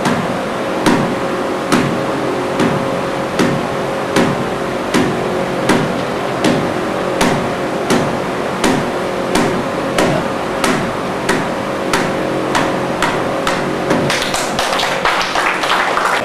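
Bare palm repeatedly slapping the head of an iron nail, driving it into a wooden board: a steady series of sharp strikes a little over one a second, coming faster and closer together over the last couple of seconds.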